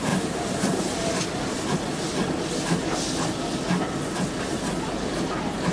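Steam-hauled passenger train running, heard from one of its carriages: the wheels running on the rails, with the hiss of steam from the ex-GWR 0-6-0 pannier tank locomotive at its head.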